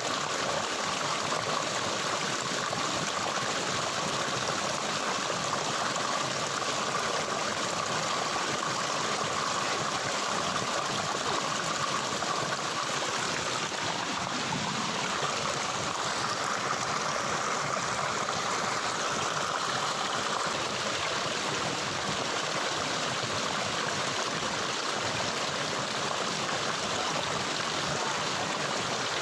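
Flowing stream water running steadily, an even rush with no breaks.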